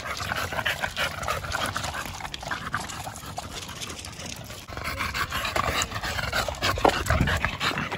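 Dogs panting and lapping water from a plastic kiddie pool, a quick run of wet licks and splashes.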